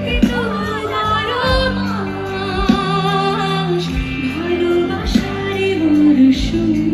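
Live concert music: a woman singing a melody with gliding and held notes over a band, with a drum hit about every second and a quarter, heard through the venue's sound system from among the audience.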